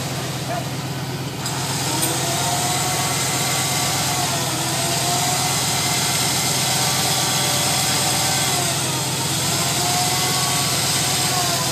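Tuned V8 engine of a D&G off-road buggy running at low revs as it crawls slowly over rocks, with a whine that rises and falls every couple of seconds; it gets slightly louder about a second and a half in.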